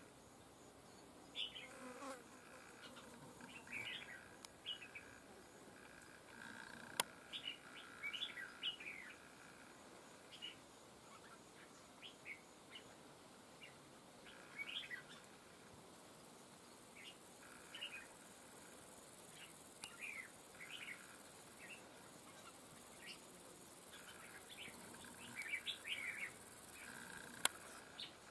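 Red-whiskered bulbuls giving short, scattered chirping calls, over a faint steady insect buzz.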